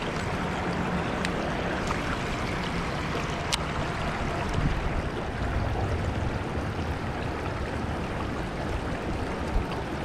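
Shenandoah River water rushing steadily over rocks, an even hiss, with two faint ticks in the first few seconds.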